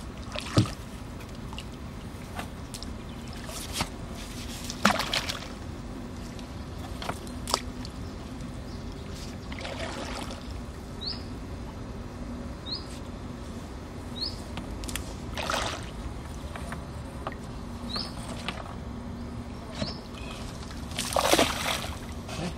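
Fishing net being paid out from a wooden rowboat: water splashing and sloshing, with sharp knocks against the boat, the loudest about half a second and five seconds in, and a bigger splash near the end. A bird repeats a short rising chirp every second or two through the middle.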